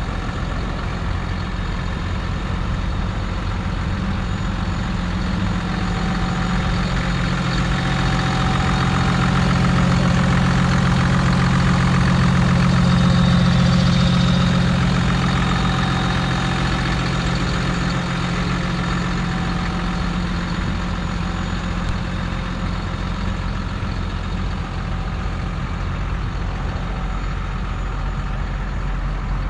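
2018 Hino 268's 7.7-litre inline-six turbo-diesel idling steadily, growing louder for several seconds in the middle when heard close over the open engine bay, then easing back.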